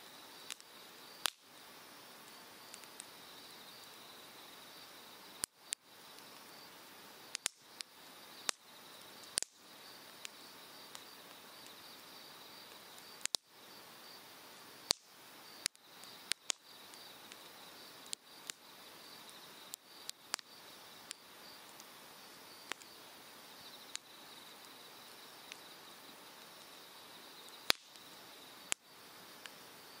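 Cedar firewood burning in an open fire pit, popping and crackling with sharp, irregular cracks every second or so, over the steady rush of a mountain stream and a steady high trill.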